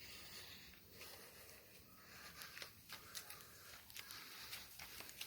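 Faint footsteps: light, irregular ticks and scuffs over a near-quiet background.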